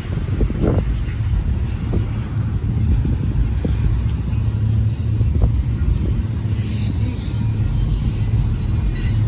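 Cars of a Union Pacific double-stack intermodal freight train rolling past, a steady low rumble with a few scattered knocks and a faint thin high squeal partway through.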